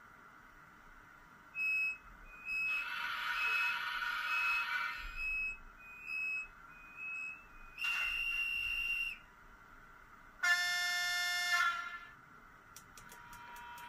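ESU LokSound sound decoder in a Z-scale Märklin ICE 3 model playing train sound effects through its tiny speaker. A series of short high beeps comes first, with a hissing burst between them. About ten seconds in there is a horn blast of several tones together, followed by faint ticking.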